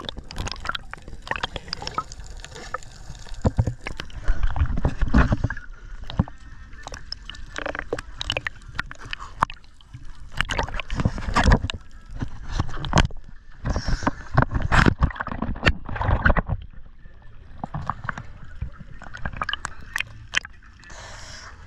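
Seawater sloshing and gurgling around a camera held at the surface, with irregular splashes and bubbling bursts as it dips under and comes back up.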